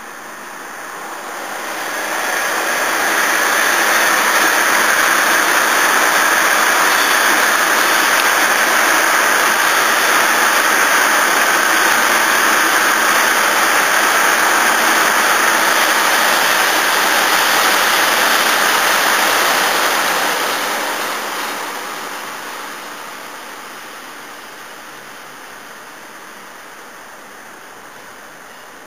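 A train passing on a mainline railway: a rushing noise that builds over a few seconds, holds steady for about sixteen seconds, then fades away.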